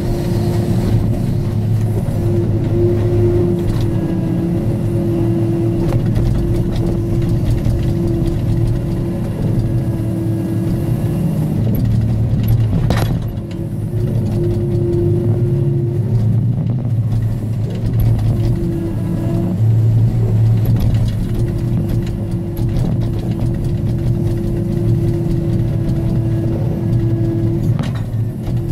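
Timbco feller buncher's diesel engine running steadily under load, with a steady humming tone that comes and goes as the felling head handles logs. A single sharp knock about thirteen seconds in.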